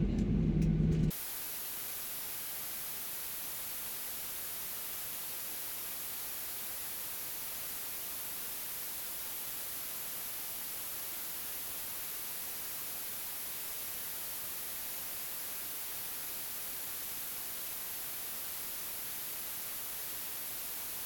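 The low rumble of a Boeing 737-800's cabin on the ground lasts about a second, then cuts off abruptly. A steady hiss of analogue-TV static replaces it.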